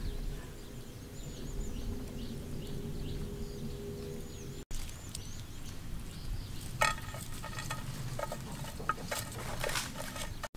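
Outdoor ambience with small birds chirping repeatedly over a low hum, then, after a cut, scattered clicks and knocks of cooking utensils being handled.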